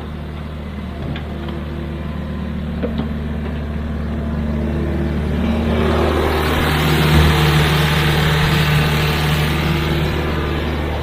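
Excavator's diesel engine running steadily, building up louder and harsher from about six seconds in as it works harder, then easing slightly near the end.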